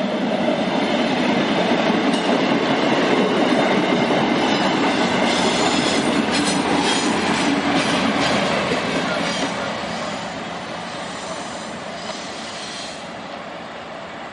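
MARC commuter train passing close: steel wheels clicking over the rail joints as the coaches go by. The MP36 diesel locomotive pushing at the rear passes about eight seconds in, and then the sound fades as the train pulls away.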